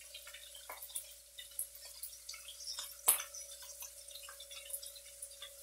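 Seared pork butt sizzling in a hot cast iron pan, with irregular small crackles and pops and one sharper click about three seconds in.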